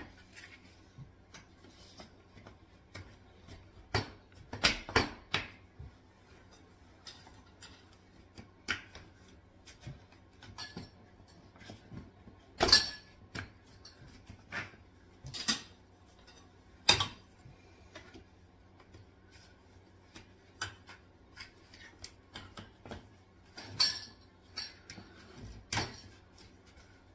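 Metal tube poles and shelf frames of a Bloom four-tier greenhouse clinking and knocking as they are pushed together by hand. Scattered clicks with a few louder knocks, the loudest about halfway through.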